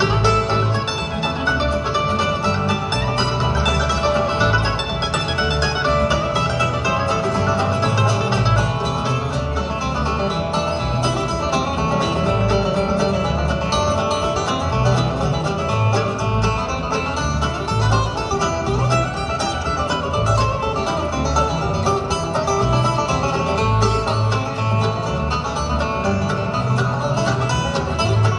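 A live bluegrass band playing, with fiddle and acoustic guitars over a steady beat.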